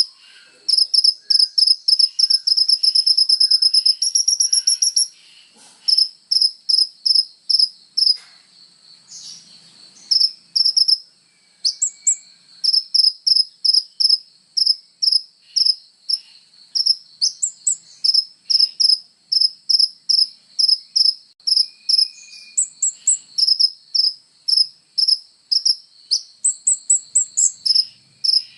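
A sunbird (the 'kolibri ninja' of Indonesian bird-keepers) singing a long run of sharp, high-pitched chips, two to three a second, with a fast trill about two to five seconds in and a few higher notes now and then.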